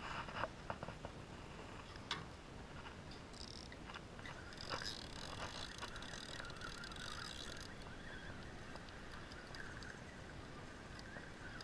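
A few knocks and clicks of a fishing rod being handled, then a Penn spinning reel cranked steadily, its gears whirring as the line is wound in.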